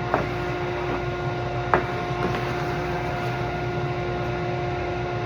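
Steady machine hum with a clear steady tone, with a short click near the start and a louder click a little under two seconds in.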